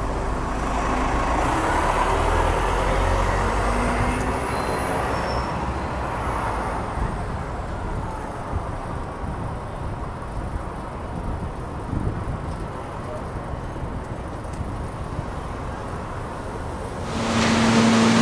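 A city bus pulls away with its engine running, fading into steady street traffic noise. About a second before the end this gives way to a louder, steady low hum from a subway train standing at the platform with its doors open.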